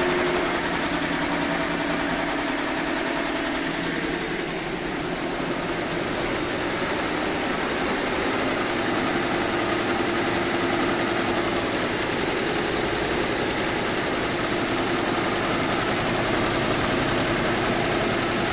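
FUWEI four-head commercial embroidery machine running, all four heads stitching at once in a steady, rapid mechanical clatter.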